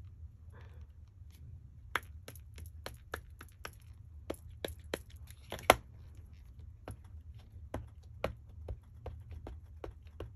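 Wooden-mounted rubber stamp tapped over and over on an ink pad, then pressed onto paper: light, quick taps about three a second, starting about two seconds in, with one louder knock a little past halfway.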